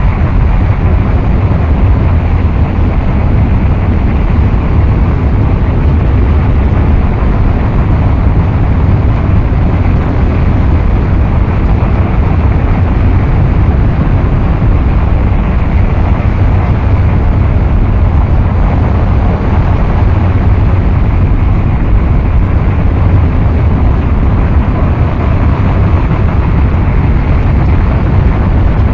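Loud, dense, unchanging wall of noise, heaviest in a deep rumble, with no beat, melody or pauses: a noise-music track.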